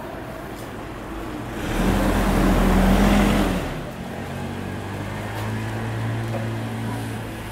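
A vehicle passes close by: a rushing swell with a low rumble lasting about two seconds, then a steady low hum.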